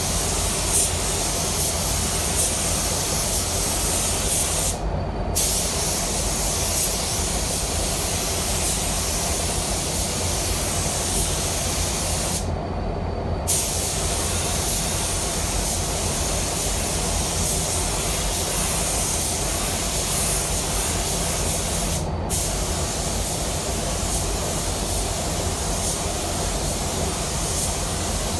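Automotive paint spray gun hissing steadily as it sprays tinted sealer onto a bumper. The trigger is let off three times: briefly about five seconds in, for about a second near the middle, and for a moment near the end. A steady low rumble runs underneath.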